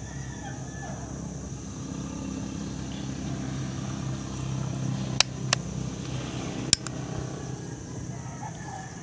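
Low, steady hum of a distant engine, broken by three sharp clicks about halfway through.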